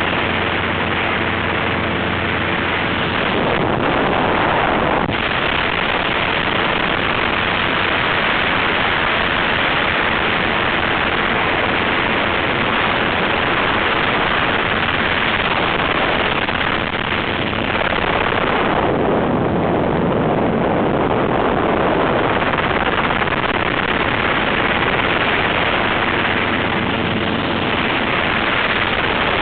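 Wind rushing over the microphone through the open doorway of a Robinson R22 Beta helicopter in flight, over the steady drone of its rotor and engine. The wind rush is heaviest through the middle, where it nearly covers the drone.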